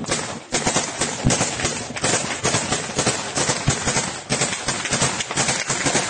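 Gunfire in combat footage: a dense, irregular string of shots and cracks, several a second.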